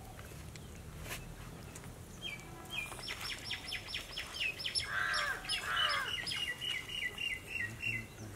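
Small birds calling: starting about two seconds in, a fast run of high, quickly falling chirps, then two lower, fuller calls around five and six seconds, and a rapid trill of repeated notes near the end.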